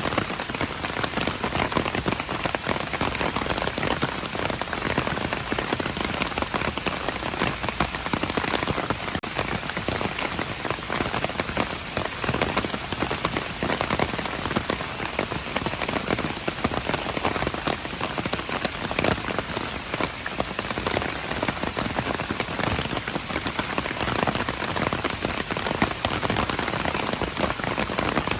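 Steady rain falling on hard surfaces, a dense even patter of many drops with no letup.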